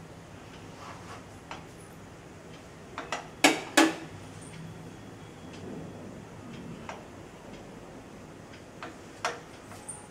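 Mustard oil heating in a small steel tempering ladle over a gas burner, with scattered sharp pops and clicks. The two loudest come close together a little over three seconds in, over a faint, low, steady hum.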